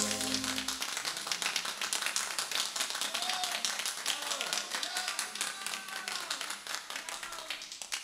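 A band's closing keyboard chord rings and stops under a second in, followed by applause from a small group of listeners that slowly fades, with a few voices talking underneath.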